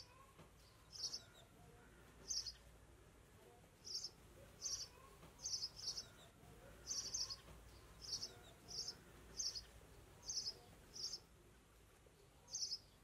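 A small bird chirping: short, high single chirps repeated at irregular intervals, about fifteen in all, over faint background hiss.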